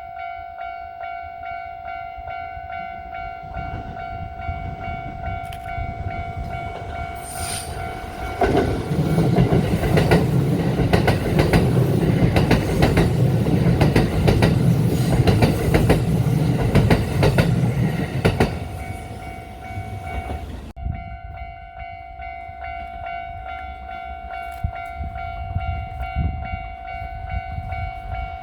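Level-crossing warning bell ringing steadily. About eight seconds in, a Kintetsu Nagoya Line electric train passes over the crossing for about ten seconds with a loud rumble and wheel clatter over the rail joints. The bell keeps ringing after the train has passed.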